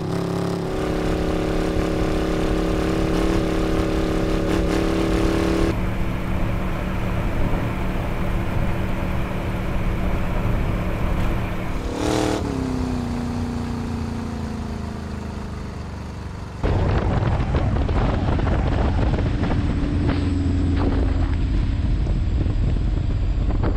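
A sand rail's 350 Chevy small-block V8 (5.7 L, a detuned Corvette engine) running under way, heard through mics at the exhaust and on the engine. The sound changes abruptly twice as the recording switches mics. Midway the engine pitch falls slowly as it slows down, and near the end comes a louder, noisier stretch.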